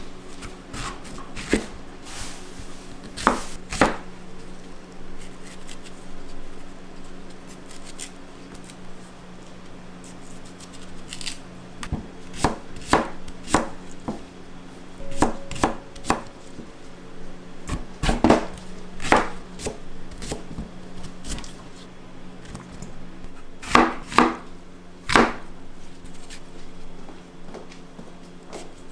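Kitchen knife chopping on a cutting board in irregular strokes, single knocks and quick pairs with pauses between them, over a steady low hum.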